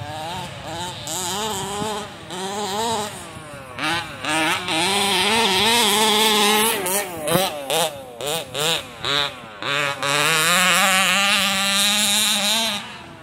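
Rovan 1/5-scale RC car's small two-stroke gas engine revving up and down with constantly changing throttle. About seven seconds in it gives a run of short throttle blips, then is held at high revs and cuts off sharply near the end.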